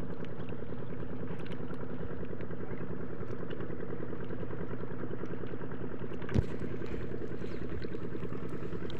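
A small engine running steadily at idle, with light clicks and one sharp knock about six seconds in.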